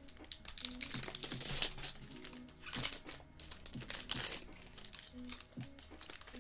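Foil trading-card pack wrapper crinkling and tearing as it is slit and peeled open by hand, in several short bursts, the loudest about a second and a half in.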